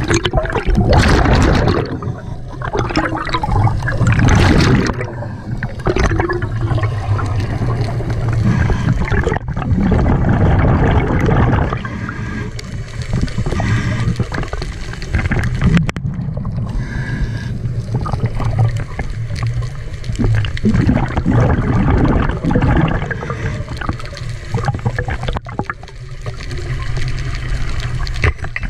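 Scuba diver's regulator breathing underwater: bursts of exhaled bubbles gurgling and rushing past the camera, swelling and fading every several seconds.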